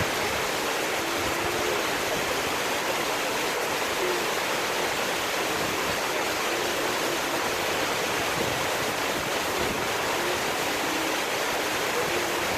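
Ouzoud waterfalls: falling water rushing in a steady, even hiss without breaks.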